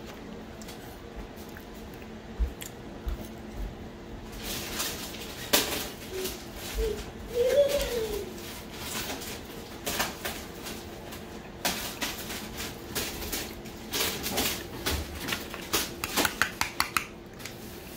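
Dishes and cutlery clinking and clattering in an irregular run of sharp knocks, starting about four seconds in and dying away near the end.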